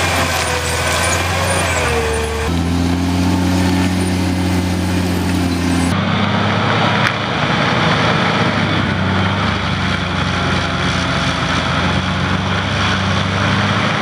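Tracked forestry mulcher's engine running hard while its mulching head shreds gorse and brush: a steady engine note over a dense grinding noise. The engine note shifts twice, and the sound stops abruptly at the end.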